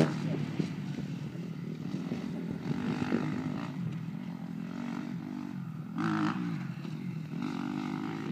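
Suzuki RM-Z motocross bike's four-stroke single-cylinder engine heard at a distance, revving up and easing off again and again as the rider runs the track, its pitch rising and falling several times.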